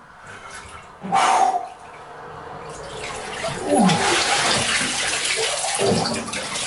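Cold bath water sloshing and splashing in a bathtub as a person heaves up out of it, water pouring off the body, getting louder from about halfway through. A short loud burst comes about a second in.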